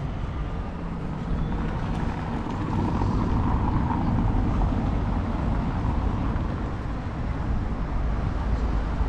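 Street ambience with traffic noise; a passing vehicle swells to its loudest about three to four seconds in.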